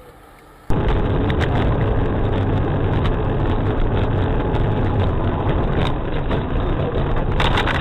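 Vehicle engine and road noise as picked up by a dashcam microphone, a steady loud rumble with scattered small clicks, starting abruptly about a second in.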